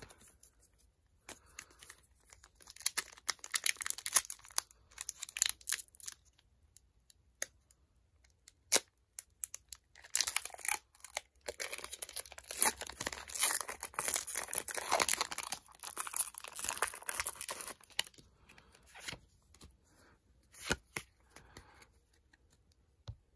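Foil wrapper of a Pokémon booster pack being torn open and crinkled in two long crackly stretches, with a few sharp clicks in between.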